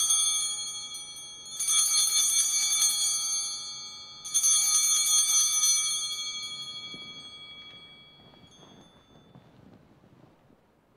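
Altar bells, a cluster of small bells shaken in three rings about two to three seconds apart, each with a fast shimmering tremolo; the last ring fades away over several seconds. They mark the elevation of the consecrated host at Mass.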